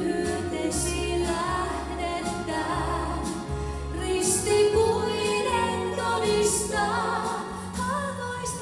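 A woman singing a worship song into a microphone, over an instrumental accompaniment that holds long low bass notes.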